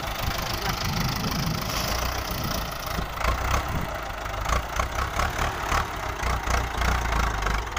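Ford New Holland 6610 tractor's three-cylinder diesel engine running steadily in the field, with sharper clattering knocks from about three seconds in.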